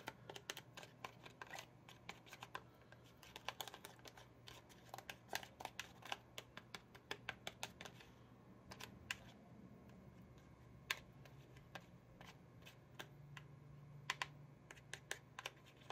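Tiny plastic spoon clicking and scraping against a plastic candy mold tray while spreading gummy mix into the molds: faint, irregular small clicks, busier in the first half and sparser later.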